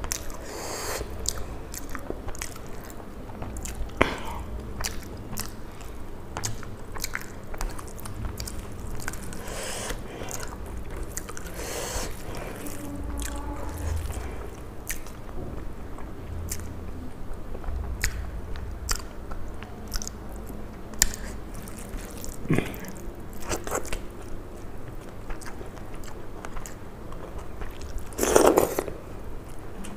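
Close-miked eating: chewing and biting of rice and curry eaten by hand, with many small wet mouth clicks and smacks and an occasional crunch. A louder, brief mouth sound comes near the end.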